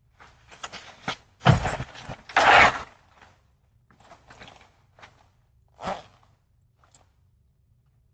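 A run of knocks and thuds over a faint low hum, heard through a security camera's microphone. The loudest is a heavy thump about a second and a half in, then a longer, noisier clatter, with a last single knock near six seconds.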